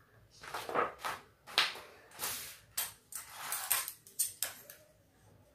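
Stiff paper sewing pattern being handled and lifted off fabric: a quick run of paper rustles and crinkles, the loudest about a second and a half in.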